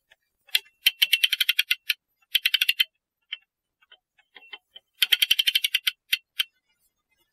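Ratchet clicks from a mainspring winder as its crank is turned to wind a clock mainspring: three runs of rapid metallic clicking, with a few single clicks between them.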